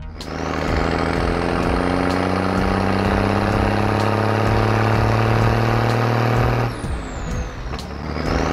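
Cartoon sound effect of a garbage truck's engine running steadily, a low hum with a steady drone, as the truck drives past. The engine sound cuts off suddenly about two-thirds of the way through. A high whoosh rises at the start, and another falls away after the cutoff.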